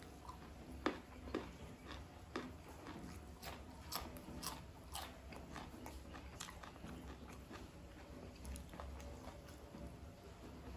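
Close-miked chewing of a mouthful of satay and rice, with irregular sharp crunches and mouth clicks throughout.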